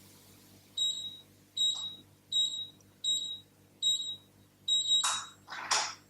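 M-Locks EM3520 electronic safe lock keypad beeping six times, one short high beep per key press, as a six-digit code is entered. Two short scraping clicks follow near the end.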